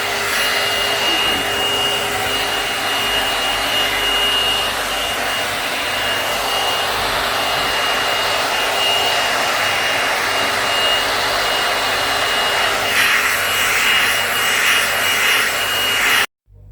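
Hair dryer styler comb blowing steadily, a rushing airflow with a thin high whine from its motor; it stops abruptly near the end.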